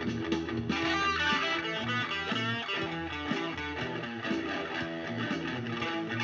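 Electric guitar playing a run of notes over a steady low line, for a test of its clean, overdrive and distortion tones. The tone turns brighter and denser just under a second in.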